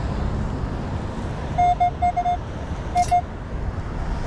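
Minelab Manticore metal detector giving its target tone: short beeps all at one pitch, a quick run of them about a second and a half in and two more about three seconds in, as the coil passes over a buried coin-like target. A brief rustle comes with the second pair, over a steady low background noise.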